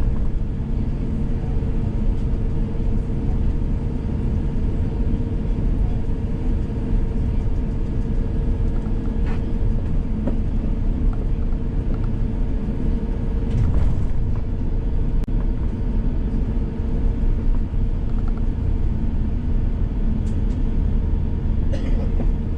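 Steady low rumble and engine hum inside the cabin of an Airbus A350-1000 on the ground before takeoff, its Rolls-Royce Trent XWB engines running. A few faint clicks about ten, fourteen and twenty-two seconds in.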